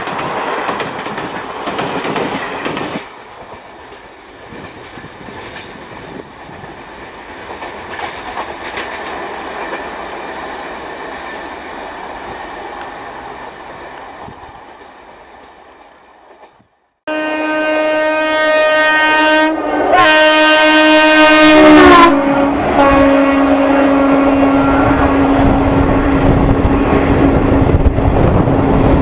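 Passenger coaches rushing past at speed with wheel clatter, the noise fading as the train runs off into the distance. Then a loud electric locomotive horn blows for about five seconds, its pitch dropping as the locomotive passes, followed by the roar of another train's coaches rushing by close on the adjacent track.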